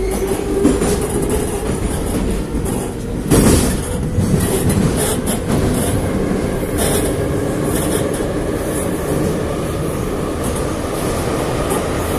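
Saint Petersburg metro train running, heard from inside the carriage: a steady loud rumble of wheels on rail, with a whine rising in pitch at the start. A loud clank comes a little over three seconds in, and short clacks follow at uneven intervals.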